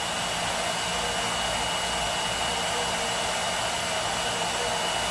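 Hot air brush hair dryer running steadily: an even rush of blown air with a thin, steady high whine from its motor.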